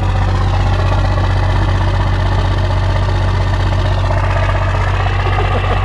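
Cummins 5.9-litre inline-six turbo diesel in a Dodge W250 pickup idling steadily at a raised idle after a freezing cold start. It still sounds unhealthy; the owner blames heavy blow-by and a worn engine.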